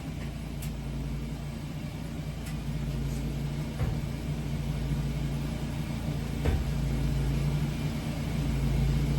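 Steady low machine hum, with a couple of faint clicks.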